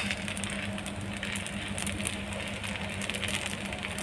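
Semolina pancake batter sizzling with fine, steady crackling on a hot non-stick tawa, over a steady low hum.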